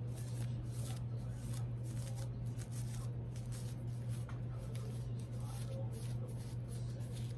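Hands rubbing and flipping a fashion doll's fabric clothes: many quick, soft rustling and brushing sounds over a steady low hum.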